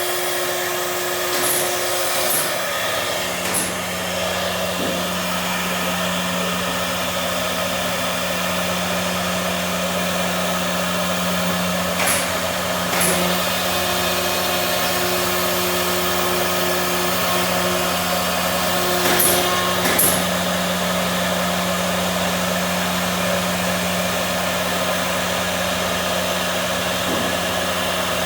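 CNC machine running with a steady motor hum and hiss, a few held tones coming and going, and a handful of brief sharp clicks scattered through.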